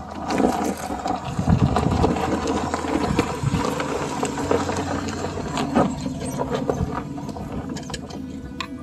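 Nissan Xterra's engine running at low revs as it creeps down a steep, rocky dirt track, tyres crunching and popping over loose stones and gravel. It is loudest as it passes close by, then fades a little as it moves away.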